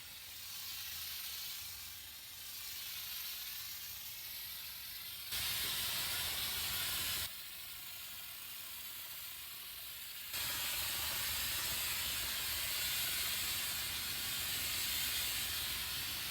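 Aerosol can of undercoating spraying in sharp on-off bursts: a loud hiss of about two seconds starting about five seconds in, then another that starts about ten seconds in and keeps going. Before the first burst there is a softer, wavering hiss.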